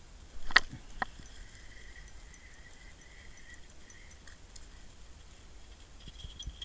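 Ice-fishing reel and line handling while a trout is landed: two sharp clicks about half a second in, then a faint thin whir for a few seconds as the line comes up through the hole.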